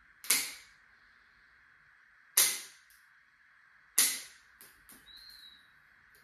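Dog nail clippers snipping through a German Shepherd's toenails: three sharp snaps about two seconds apart, followed by a few lighter clicks.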